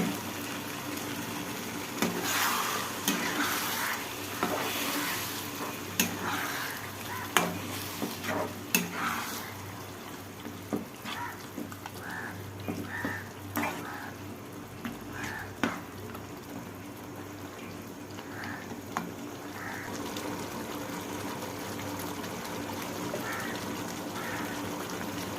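Chicken masala, thinned with a little water, sizzling in a pan while a spoon stirs it. The spoon knocks and scrapes against the pan often in roughly the first ten seconds, less often after that, and then the steady sizzle carries on alone.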